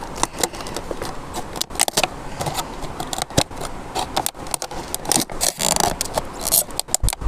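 Thin plastic bottle crackling and scraping as the cut-off neck is pushed, upside down, into the bottle body to form the funnel of a fish trap, giving a string of irregular sharp clicks.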